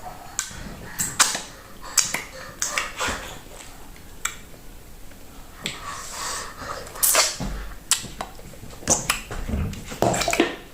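Close-miked eating of fufu and okra soup: wet mouth smacks and chewing clicks coming at irregular intervals.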